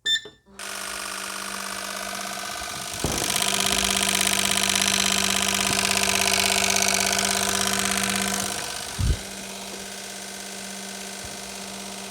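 Fuel injector test bench starting its next test: the electric pump hums steadily, and about three seconds in a louder hiss with rapid ticking joins it as the injectors pulse and spray test fluid. After about five seconds this drops back to the plain hum, with a single knock.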